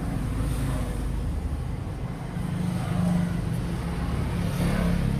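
A truck's engine running steadily under way, with tyre and road noise, heard from inside the cab. The engine hum grows a little louder about halfway through.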